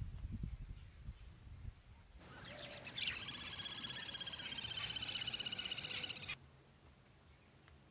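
Low knocks and rumble, then for about four seconds a fast, high trilling animal call over a steady high hiss, which starts and cuts off suddenly.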